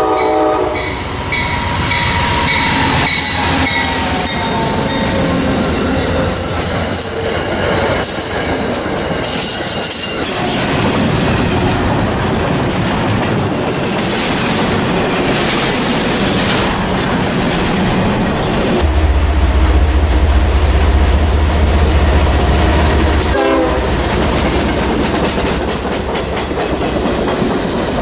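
Train rolling past on the rails with steady clatter and rumble. Its horn sounds at the start and briefly again near the end, and a deep engine rumble grows stronger about two-thirds of the way through.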